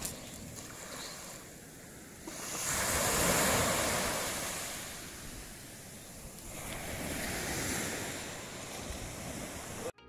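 Rushing noise of sea surf and wind on the microphone, swelling into two long surges and fading between them.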